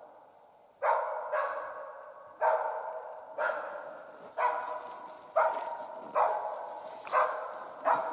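Hunting laika barking steadily at game it has found, about nine barks roughly a second apart, each trailing off in echo.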